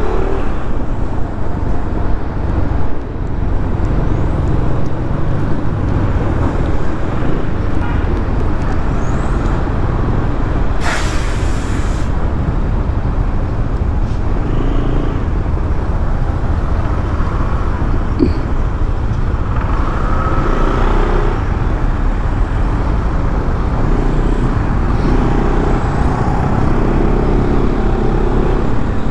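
Riding noise from a Kymco Xciting S400i maxi-scooter in slow city traffic: steady wind and road noise with the engine running underneath. About eleven seconds in there is a sharp hiss lasting about a second.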